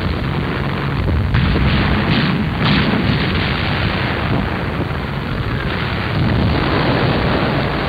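Battle sound of shell explosions and artillery fire: a dense, continuous rumble with several sharper blasts in the first three seconds.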